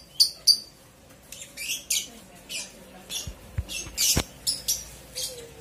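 Small birds chirping over and over in short, high-pitched calls, with a couple of low thumps and a sharp click about four seconds in.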